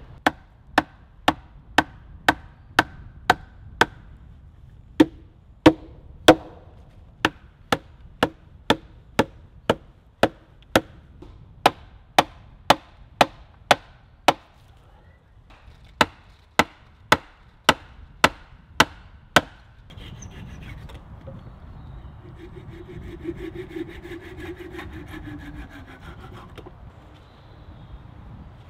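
Hammer blows driving wooden pegs into a split-log plank: a steady run of sharp wooden knocks, roughly two a second, with a short pause midway. About twenty seconds in they stop and a softer, continuous scraping of wood follows.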